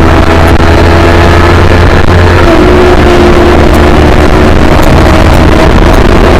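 Yamaha R3 parallel-twin engine running hard at speed, heard over heavy wind rush on the microphone. The engine note shifts in pitch about two and a half seconds in.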